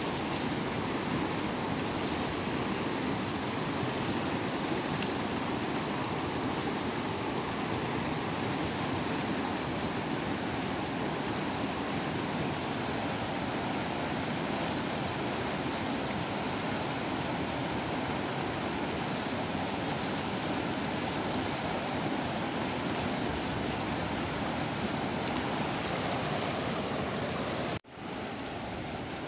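Fast-flowing river rushing over rocks: a steady rush of white water. It cuts out for an instant near the end and comes back a little quieter.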